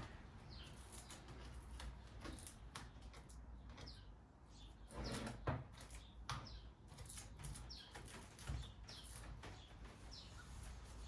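Faint bird chirps: short, high, falling notes every second or so, over quiet handling sounds with a few clicks and a knock about five seconds in.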